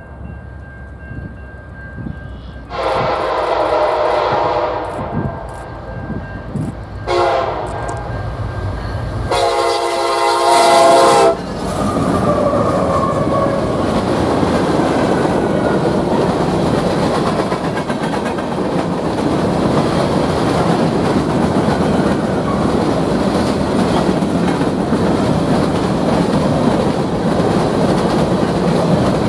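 Diesel freight locomotive's horn sounding as the train approaches: a long blast, a short one, then a louder long blast. After that comes the steady rumble and wheel clatter of a long string of covered hopper cars rolling past.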